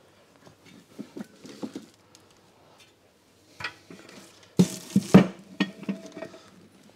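Steel clanking as a rear axle is set on axle stands: a few light knocks, then a cluster of loud clanks about four and a half seconds in, one leaving a brief metallic ring.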